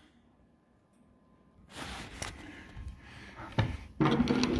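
Wooden lazy Susan turntable being rotated, its bearing giving a low rolling rumble with a couple of light knocks, louder near the end.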